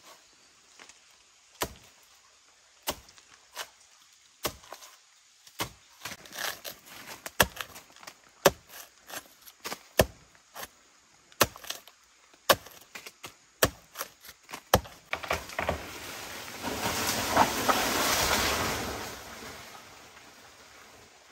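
A series of sharp knocks, at first about one every second and a half, then quicker and irregular. Near the end a rush of noise swells up and fades away.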